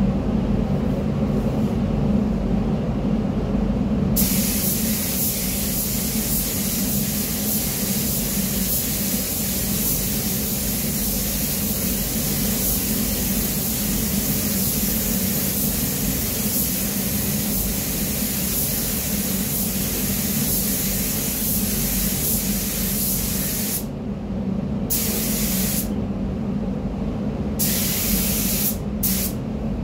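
Compressed-air paint spray gun hissing steadily as it sprays paint onto car body panels, starting about four seconds in. Near the end the trigger is released and pulled several times, so the hiss cuts in and out. A steady low hum runs underneath.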